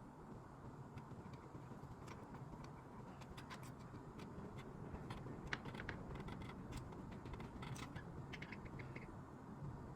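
Faint, irregular small clicks and ticks of handling, clustered in the middle, over a low steady hum.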